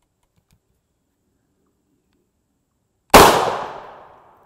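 Single shot from a 7.62x54R Mosin-Nagant rifle firing a surplus B32 armor-piercing incendiary round, a sharp crack about three seconds in whose echo dies away over about a second.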